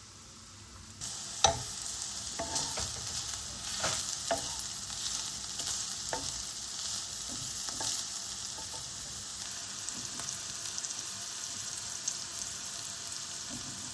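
Vegan mince sizzling in a frying pan, starting suddenly about a second in, with a utensil stirring it and clicking against the pan several times.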